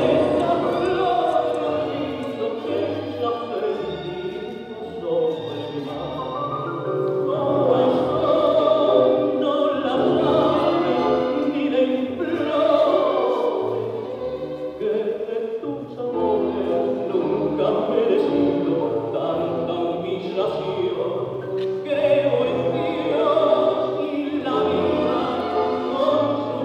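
Music with singing over an instrumental accompaniment.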